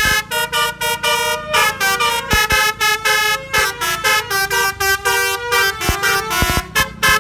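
Basuri multi-trumpet musical car horn driven by a melody module with the 'DAV air horn' tone, playing a fast tune of short honking notes that step up and down in pitch.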